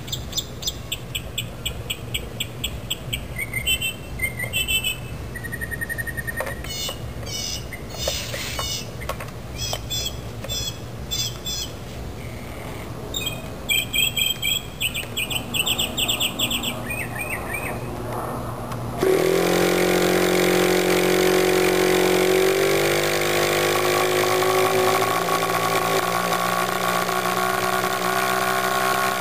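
Birds chirping, then about two-thirds of the way in an electric starter spins an O.S. 46 AX two-stroke glow engine, fitted with its muffler, and it starts and runs steadily.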